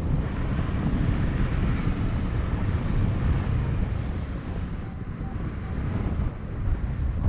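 Wind buffeting the microphone of a paraglider pilot gliding in low to land: a steady, rumbling rush of airflow.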